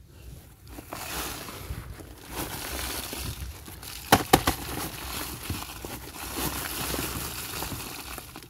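Dry leaves and litter rustling and crackling as a wire-mesh snake trap is lifted and shifted by hand, with a few sharp knocks of the trap about four seconds in.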